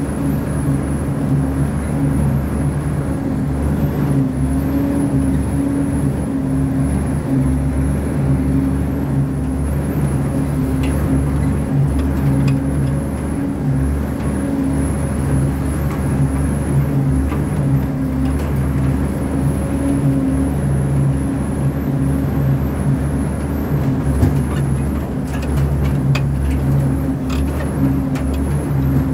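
Engine of an old belt-driven combine harvester running steadily at an even speed, with a few light rattles near the end.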